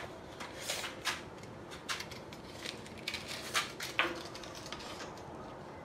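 Quiet handling noise while a cherry board is measured: scattered light clicks and rustles, with a sharper click about four seconds in.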